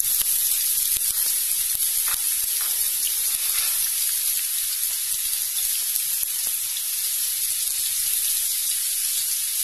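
Chopped onion and small whole baby onions sizzling in a spoonful of hot oil in a frying pan: a steady frying hiss.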